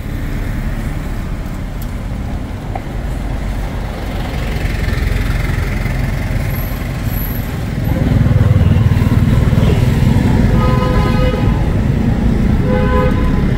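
City street traffic: a steady rumble of engines and tyre noise that grows louder about eight seconds in, with vehicle horns sounding twice near the end.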